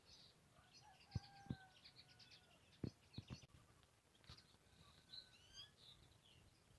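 Faint chirping and twittering of small birds, broken by a few sharp clicks between about one and three and a half seconds in. A faint distant crow sounds briefly about a second in.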